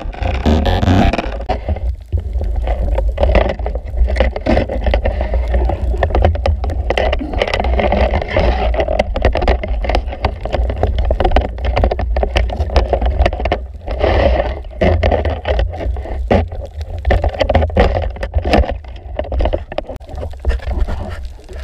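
Underwater sound heard through a camera underwater: a steady low rumble of moving water, with a dense crackle of sharp clicks throughout.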